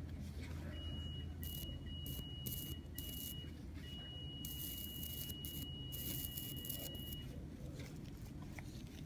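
Diathermy (electrosurgical) unit sounding its steady high activation tone in several stretches, the longest about three seconds, with short hissing bursts as the tip cauterises bleeding vessels in the shaved skin lesion. The tone starts under a second in, breaks off a few times, and stops about seven seconds in.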